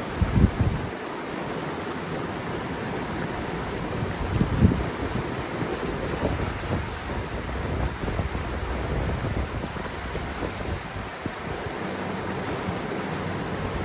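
River water rushing steadily, with low wind buffets on the microphone about half a second in and again around four and a half seconds. A faint steady low hum comes in near the end.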